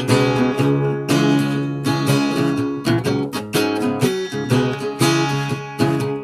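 Guitar being played: chords strummed in a steady rhythm, struck several times a second as the fretting hand changes shapes.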